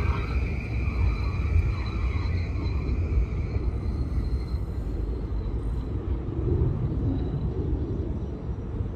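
Metro-North M8 electric multiple-unit train pulling away, a steady low rumble of wheels on the elevated track. A high steady whine from the train fades out about three and a half seconds in.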